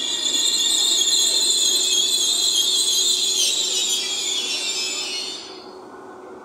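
Hitachi Rock (ETR 521) electric train braking to a stop: a loud, high hissing screech from the brakes over a steady low hum, cutting off suddenly about five and a half seconds in as the train halts.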